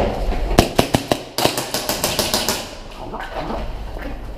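Airsoft guns firing a rapid string of sharp shots, starting about half a second in and stopping a little before three seconds in.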